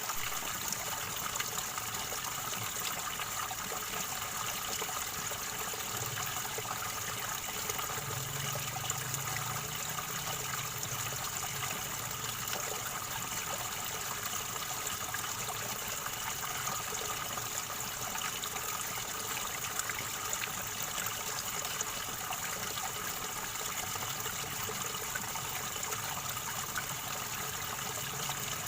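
River water gurgling and flowing steadily over stones.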